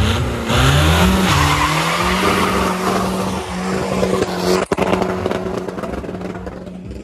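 Car engine revving up and held at high revs while the tyres squeal and skid in a burnout. There is a brief break about two-thirds of the way through, then the sound fades.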